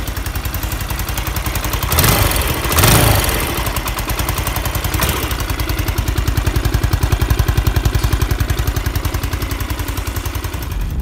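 Yamaha Majesty 125 scooter's single-cylinder four-stroke engine idling through a stainless aftermarket muffler, with a steady, even pulse and two brief louder swells about two and three seconds in. It is running on a freshly replaced crankshaft and is described as quiet enough that you would think it had stalled.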